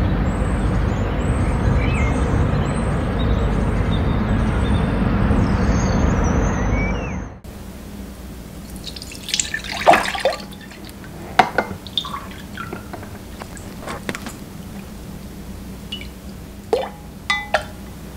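Steady heavy rain for about seven seconds, then an abrupt change to a quiet kitchen: liquid is poured into a glass measuring cup of soy-sauce marinade, followed by a few small spoon clinks and taps against the glass.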